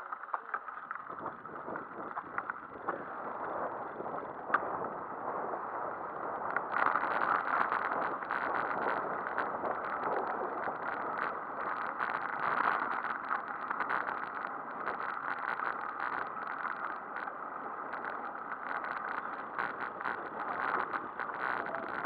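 Bicycle rolling over a gravel road: the tyres crunch on loose stones and the bike rattles, getting louder about six or seven seconds in.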